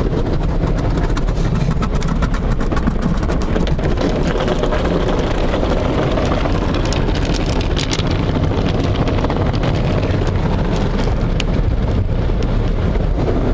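Automatic car wash heard from inside the car: water jets spraying and rotating brushes scrubbing over the windshield and body, a loud steady rush with many small ticks through it.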